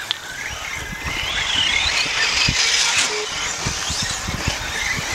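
RC race cars' motors whining on a dirt track, the pitch rising and falling as the cars speed up, brake and pass, with scattered low thumps. The sound grows louder about a second in.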